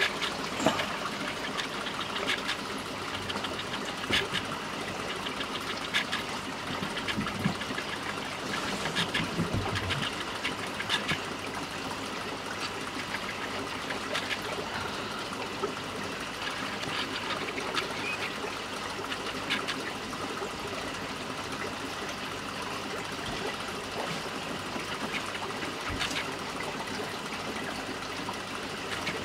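Aquarium water trickling steadily, with irregular small clicks and pops every second or two.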